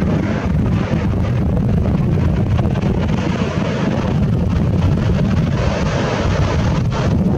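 Wind buffeting the microphone: a loud, steady low rumble with a hiss above it that drowns out anything else.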